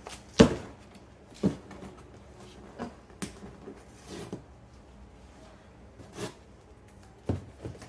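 A cardboard box being handled and pried open: a run of separate knocks, scrapes and rustles, the loudest a sharp knock about half a second in.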